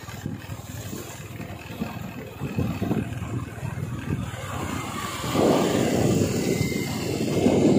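A vehicle engine running under rough, gusty rumbling noise on the microphone while the camera moves along the road. The rumble gets louder about five seconds in.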